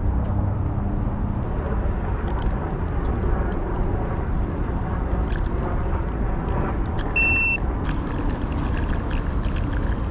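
Wind rushing over the microphone and tyre rumble from a Segway Ninebot Max electric kick scooter riding on a paved path, with light rattles and clicks. A short high beep sounds about seven seconds in.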